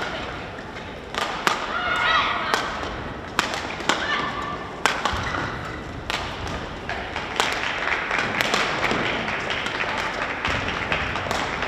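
Sharp, irregularly spaced smacks of rackets hitting shuttlecocks and short shoe squeaks from play on neighbouring badminton courts, over a hum of faint voices in the sports hall.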